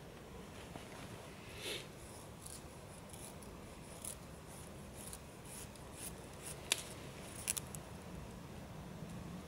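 Short dry scrapes and clicks of sticks and tinder being handled in a fire pit, scattered through, with one sharp snap about two-thirds of the way in and a few quick clicks after it.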